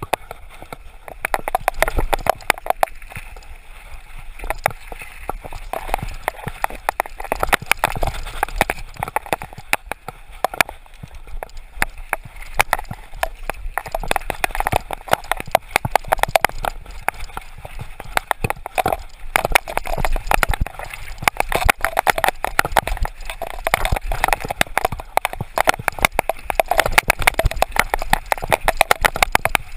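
Mountain bike descending a rough dirt trail: a dense, continuous clatter of knocks and rattles as the bike jolts over roots and rocks.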